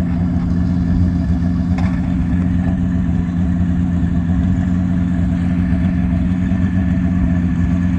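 An engine idling steadily: a deep, even drone with no revving.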